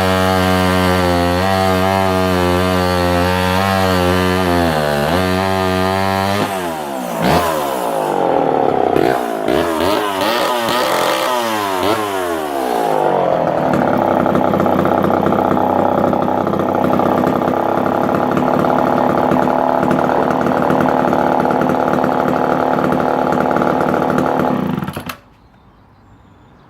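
Homelite Super XL Automatic two-stroke chainsaw running and cutting wood, its engine pitch swinging up and down in the middle before holding steady and high. The engine stops suddenly near the end.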